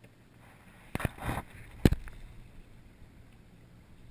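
Two sharp knocks a little under a second apart, the second much the louder, with a brief scuffing rush between them, like something striking the boat or camera mount.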